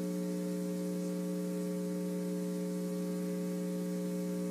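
A steady electronic hum made of several held tones sounding together, unchanging in pitch and level.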